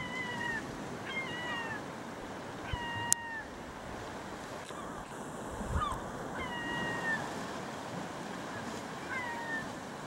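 Herring gulls calling: about six short, thin, pitched calls, each rising quickly and then holding or falling slightly, spaced irregularly a second or more apart. A single sharp click about three seconds in.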